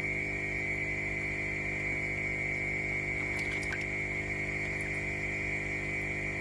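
Steady low hum with a constant high-pitched tone over it, and a few faint light clicks a little past halfway.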